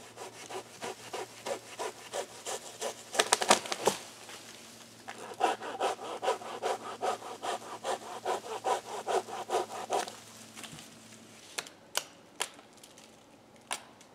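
Wood being worked with rapid back-and-forth strokes, about three to four a second, with a short break about four seconds in before the strokes pick up again. Near the end the strokes stop and a few sharp clicks follow.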